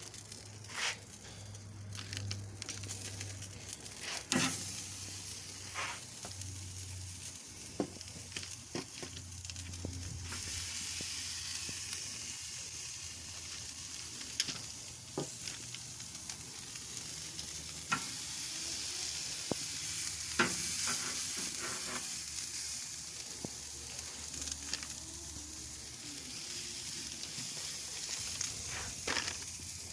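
Wagyu steak pieces sizzling on the grate of a hot charcoal grill, the hiss building as more pieces go down. Sharp clicks from the metal tongs striking the grate come now and then.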